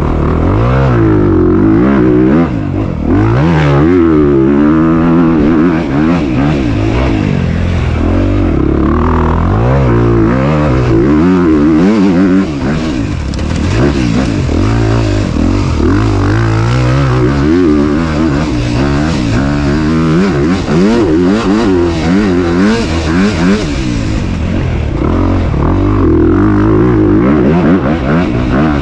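2022 Honda CRF250RX's 250cc single-cylinder four-stroke engine revving up and down over and over as the bike accelerates and backs off on a dirt track.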